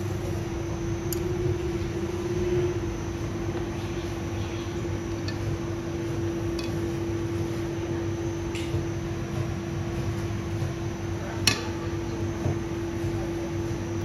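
A steady machine hum with a few scattered sharp clinks of utensils against steel bowls. The loudest clink comes about eleven and a half seconds in.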